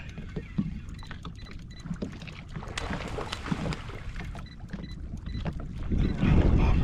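Wind buffeting the microphone as a low rumble, with scattered small clicks and knocks of handling in a boat. A stronger gust swells up near the end.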